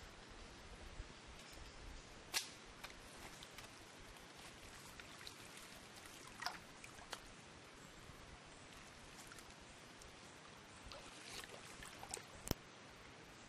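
Faint scrapes and a few sharp clicks of hands digging soil and pebbles out of a crab burrow in a muddy creek bank, over a low steady hiss. The loudest click comes near the end.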